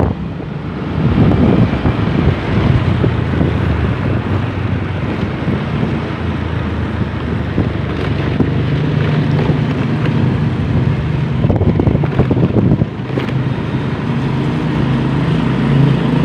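Motorcycle engine running while being ridden, with heavy wind noise on the handlebar-mounted microphone. The engine's steady hum becomes clearer about halfway through.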